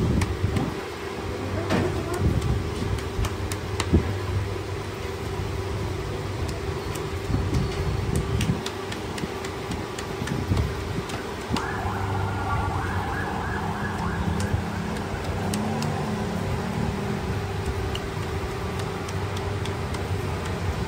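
Busy street background: traffic noise with a steady hum and scattered sharp clicks. About twelve seconds in, a held tone with several pitches comes in for a few seconds.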